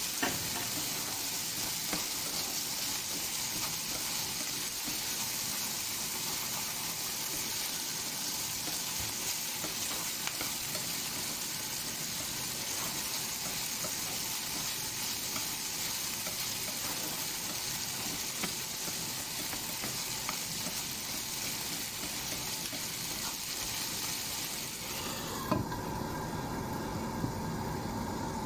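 Diced pork and onion sizzling in a nonstick frying pan while being stirred, with small scrapes and clicks of the utensil against the pan. About three seconds before the end, a knock as a glass lid goes on, and the sizzle drops to a muffled hiss under the lid.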